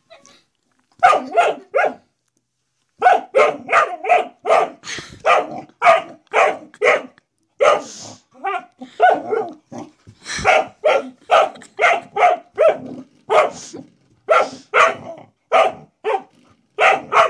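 Dog barking repeatedly at a spring door stop, which the owner thinks it sees as a threat: three quick barks about a second in, a short pause, then a steady run of barks, about two to three a second.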